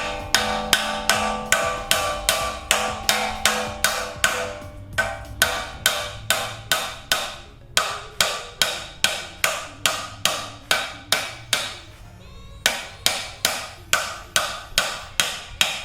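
Hammer blows on an old wheel bearing used as a driver, pressing a new front wheel bearing into the steering knuckle. The strikes are steady, about two and a half a second, each with a short metallic ring, with brief pauses about 5, 8 and 12 seconds in.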